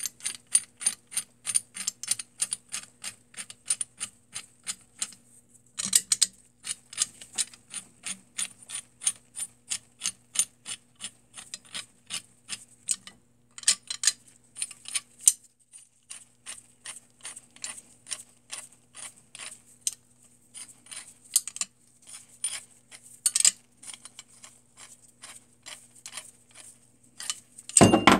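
Knurled adjusting nut of a vintage Walworth Stillson pipe wrench spun by hand along the hook jaw's threads, giving a steady run of metal clicks about three a second as the jaw is worked out of the frame. A louder metal clunk comes at the very end.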